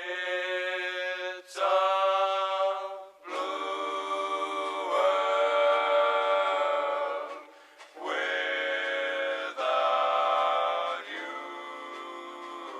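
Music: a close-harmony vocal group singing held chords without instruments or bass, in several sustained phrases separated by short breaks.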